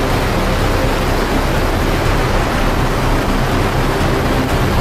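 Military helicopter in flight, heard from inside the cabin with the side door open: a steady, loud rush of rotor, engine and wind noise.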